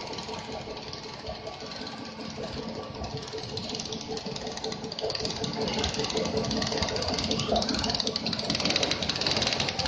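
High-speed cutting machine running, its drum spinning fast as strands of wire and plastic fibre feed over it. It makes a steady hum under a fast, dense rattle, growing louder about five seconds in.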